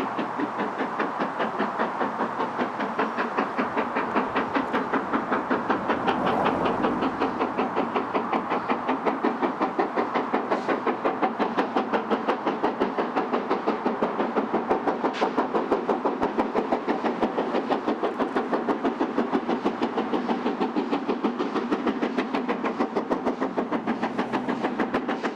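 Steam locomotive working hard at the head of a passenger train, its exhaust beating in a rapid, steady rhythm that grows slightly louder as it approaches.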